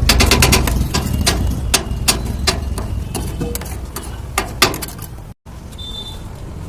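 Rapid, irregular metallic knocks of a kitchen utensil striking a hard surface, as when chopping shawarma chicken. The knocks come fast at first, then more spaced, and stop after a brief cut about five seconds in. A steady low rumble runs underneath.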